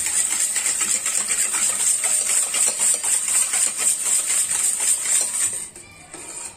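Wire whisk beating a thin liquid cake batter in a metal pot: fast, continuous clicking and scraping of the wires against the pot, stopping about five and a half seconds in. A steady high hiss runs underneath.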